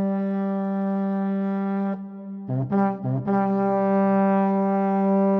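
Background music: a long held low brass note, broken about two seconds in by two short stabs of the same note, then held again.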